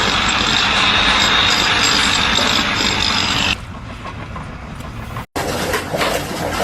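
Loud, steady engine or machinery noise with a high whine in it, cutting off abruptly about halfway through; after a short break, quieter scattered knocks and clatter.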